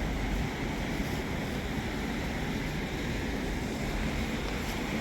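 Steady rushing noise of river water, with wind rumbling on the microphone.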